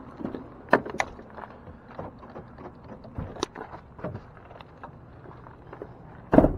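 Footsteps on gravel and a few sharp clicks and knocks around a pickup truck, ending in a loud, heavy thud near the end as a truck door shuts.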